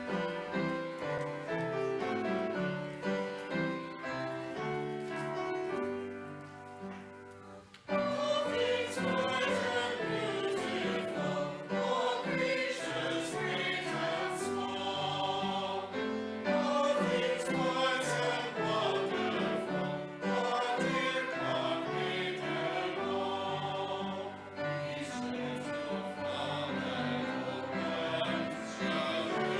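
Choir singing with instrumental accompaniment, with long held low bass notes. The music thins out and drops in level for a couple of seconds about six seconds in, then comes back fuller at about eight seconds.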